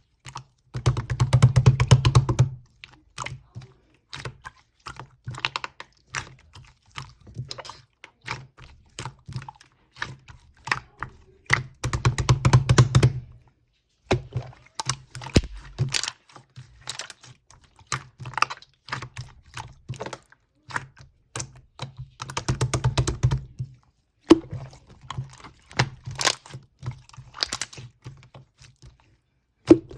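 Clear slime being played with by hand, making a quick, irregular run of small clicks and pops. The clicking grows louder and denser for a second or two three times: near the start, in the middle and about three-quarters through.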